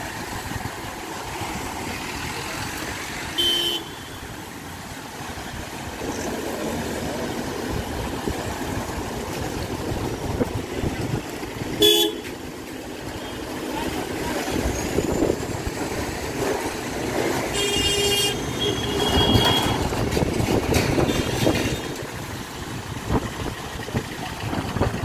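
Vehicles moving slowly past in a line, with car horns tooting several times. The loudest is a very short blast near the middle, and a cluster of toots comes later.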